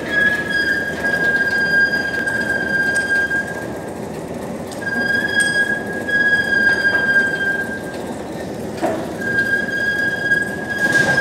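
Crane hoist lowering a borewell drilling rig into a well on its cables: a steady, high-pitched metallic squeal held at one pitch, in three long stretches with short breaks, over a low mechanical rumble.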